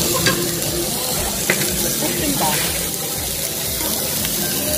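Thick slabs of marbled Korean beef sizzling on a hot perforated grill over charcoal: a steady hiss with an occasional pop.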